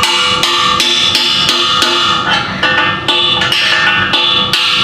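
Hammer driving a long steel drift against the inner pinion bearing race in a Dana 60 axle housing, knocking the race out. A steady run of ringing metal-on-metal blows, two or three a second.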